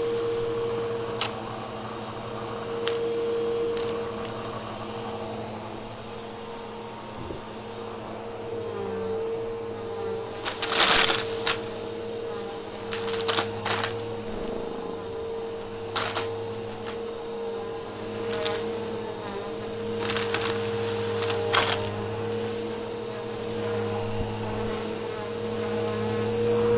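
Bissell upright vacuum cleaner running with a steady motor hum as it sucks crunchy debris off carpet. Sharp crackles and pops break through from about ten seconds in and recur every few seconds as bits rattle up into the nozzle.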